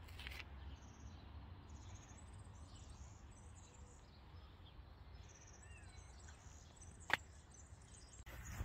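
Faint garden ambience: scattered high, brief bird chirps over a steady low rumble, with one sharp click about seven seconds in.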